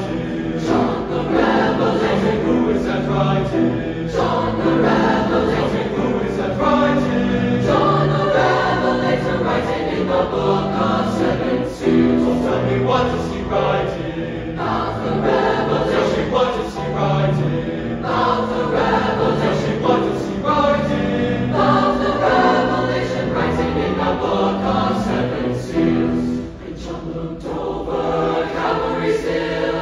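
Large high school choir singing a gospel piece in full harmony, the voices moving together in rhythmic block chords.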